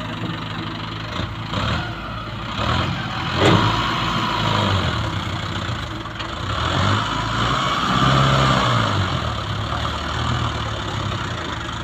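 Mahindra Arjun Novo 605 DI tractor's diesel engine running under load as it pulls a fully loaded trailer, with the level swelling for a few seconds in the second half. About three and a half seconds in there is a single sharp bang.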